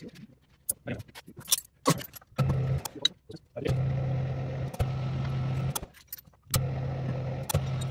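Light metallic clinks and clicks of aluminium heat sink parts and tooling being handled on a milling machine's vise and table, then a steady machine hum with a hiss over it in three stretches, stopping and starting abruptly: the milling machine running.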